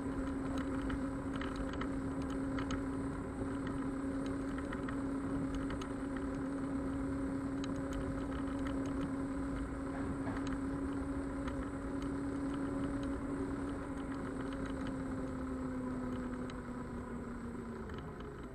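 Xiaomi Mijia M365 electric scooter under way: a steady hub-motor whine over the rumble of its tyres rolling on plank decking, with scattered faint ticks. The whine dips slightly in pitch and dies away near the end.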